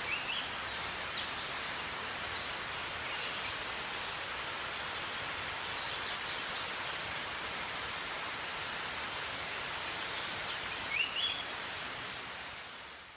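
Steady outdoor rushing noise, like running water or wind, with an insect's thin high continuous buzz over it and short rising bird chirps near the start and again near the end; it fades out at the close.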